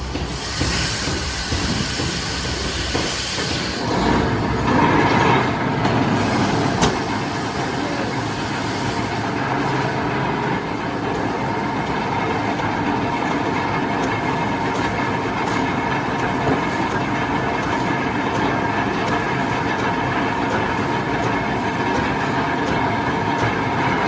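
Sawmill machinery running steadily, with a continuous mechanical drone carrying a steady whine. A high hiss sounds over it for the first three seconds or so.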